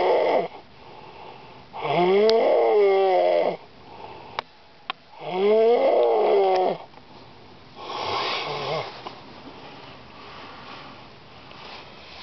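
A man snoring loudly in his sleep: long snores, each rising and then falling in pitch, come about every three and a half seconds. They are followed near the end by a quieter, breathier snore. Two short faint clicks fall between the second and third snores.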